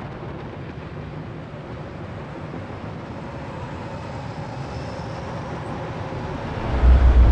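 Title sound effect: a rumbling noise that slowly grows louder, then a loud, deep boom near the end.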